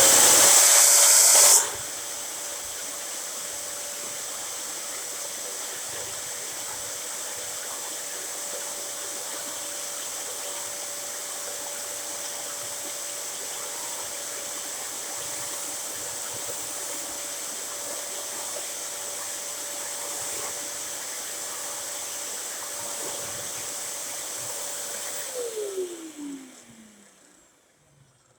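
Dyson DC07 upright vacuum cleaner running with a tool attached. It is very loud for the first second and a half, then settles into a steady rush of air with a steady whine. About 25 seconds in it is switched off, and the whine falls in pitch as the motor spins down.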